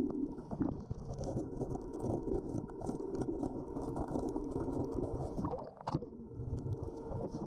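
Muffled underwater noise with fine crackling ticks throughout, and one sharp knock about six seconds in.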